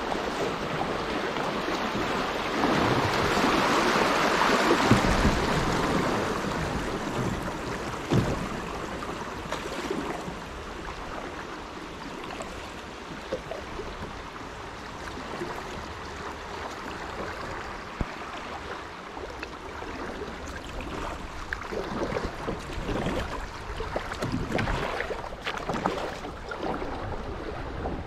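River water rushing over a shallow riffle around a drifting kayak, loudest a few seconds in, then easing to gentler flowing water. Occasional light knocks come through, mostly in the second half.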